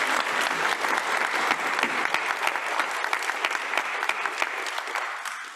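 Audience applauding, a dense patter of clapping that fades away at the end.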